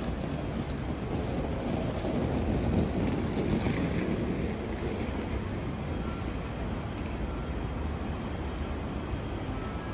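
Steady low rumble of outdoor city ambience, with wind on the microphone.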